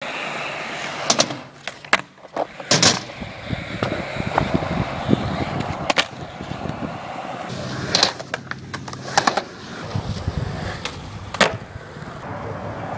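Skateboard wheels rolling on asphalt, broken by several sharp wooden clacks of the board popping and landing during flatground tricks.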